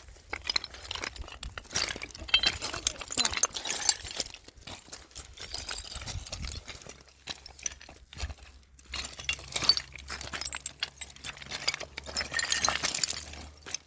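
An irregular run of sharp clinks and scrapes, hard objects knocking and rubbing together.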